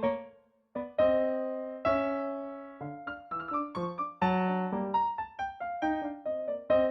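Solo piano accompaniment: struck notes and chords that ring and die away, with short pauses between phrases and a busier run of notes in the second half.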